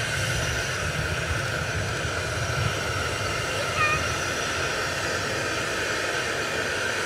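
Rhaetian Railway G 4/5 steam locomotive approaching slowly with its train: a steady low rumble and hiss. A brief short tone sounds about halfway through.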